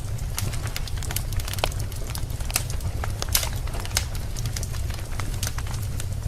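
Wood fire burning in a fireplace: irregular sharp crackles and pops over a steady low rumble, with a louder pop about three seconds in.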